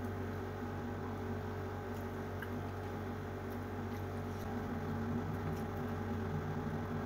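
Soft eating sounds from eating by hand: fingers picking through fried pomfret and rice, and chewing, with a few faint clicks. A steady low hum runs underneath.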